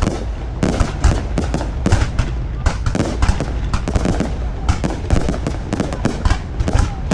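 Aerial fireworks going off in rapid, irregular succession: sharp bangs and crackling over a continuous low rumble.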